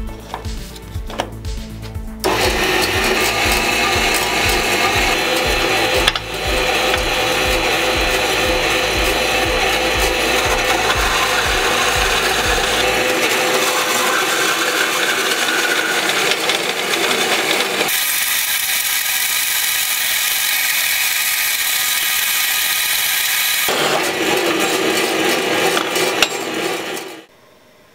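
Homemade vertical metal-cutting bandsaw, driven by a salvaged power-wheelchair motor, starting about two seconds in and running steadily as its blade cuts through a metal bar, then stopping shortly before the end.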